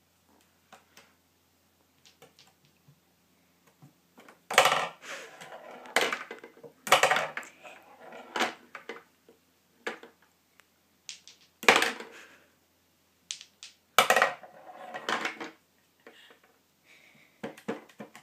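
Small balls on a tabletop toy pool table batted about by a cat's paw: a string of sharp clacks as they hit each other and the cushions, with short rattling runs as balls drop into the pockets and roll down the ball return. The clatter starts about four seconds in and comes in irregular bursts.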